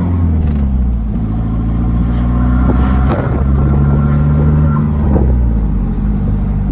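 Colorado ute's engine and exhaust pulling hard under acceleration, heard from inside the cabin; the pitch climbs and falls away twice, about three and five seconds in.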